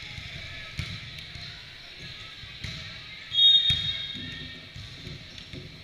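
Volleyball rally in a large gym: a few sharp smacks of hands and arms on the ball. About three and a half seconds in comes a short, loud, high referee's whistle blast, the loudest sound, over the chatter of players and spectators.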